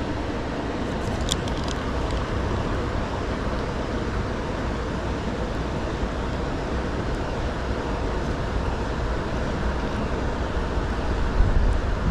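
Steady rushing of a small waterfall into a lake, an even continuous noise, with a few light clicks about a second in.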